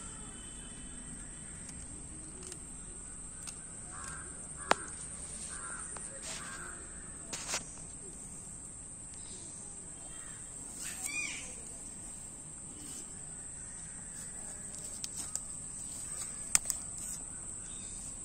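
Steady high-pitched drone of insects in the grass, with a bird calling a few times about a quarter of the way in and again near the middle. A few sharp clicks stand out over it.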